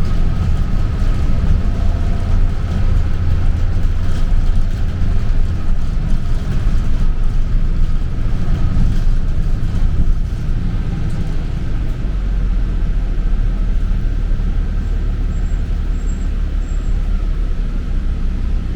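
Bus running on the road, heard from inside the cabin: a steady low engine and road rumble.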